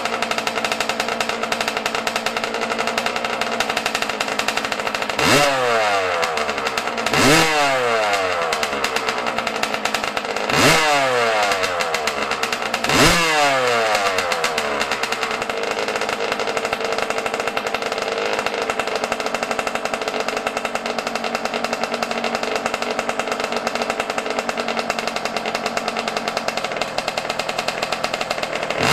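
Yamaha YZ125 two-stroke single idling, blipped four times in quick rises and falls of revs through the first half, then settling back to a steady idle. The engine is still cold and running rich while its carburettor air screw is opened to lean it out.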